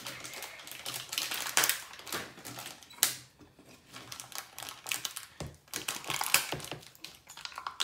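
Foil blind-bag wrapper crinkling and crackling as it is torn open by hand: a rapid run of small crackles, with a quieter pause about three seconds in.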